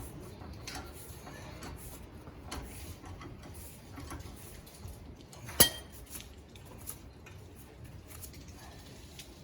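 Light metallic clicks and clinks of hand tools and a steel axle nut being worked onto a wheel hub, with one sharp, ringing metal clink about five and a half seconds in.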